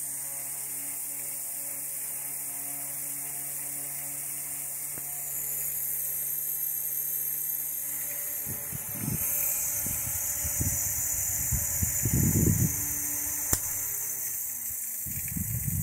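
Antique Menominee clamshell fan running: a steady motor hum with a high hiss from its commutator, which is a bit noisy. In the second half, irregular low thumps come and go, with one sharp click near the end.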